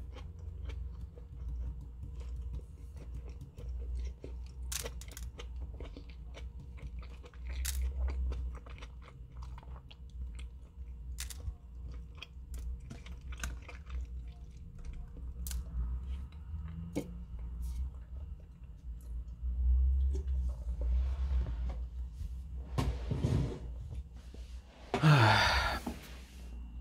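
Close-up chewing of crunchy food, with scattered small clicks of fingertips picking sesame seeds off a desk. Near the end come two louder, short noisy bursts, the second with a falling low tone.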